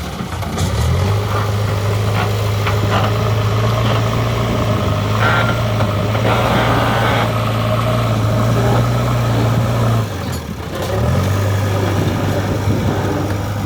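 JCB 3DX Eco Xcellence backhoe loader's diesel engine running at working revs, picking up within the first second and holding steady, then dropping back briefly about ten seconds in before revving up again.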